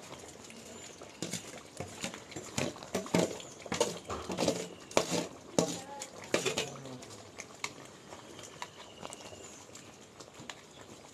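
Metal ladle scraping sesame-and-peanut paste out of a steel bowl and stirring it into a large pot of boiling brinjal gravy: a quick run of clinks, knocks and scrapes in the first half, growing sparse later.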